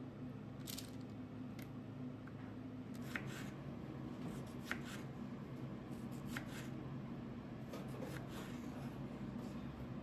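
Scattered light clicks and handling noises, about nine in ten seconds, over a steady low hum.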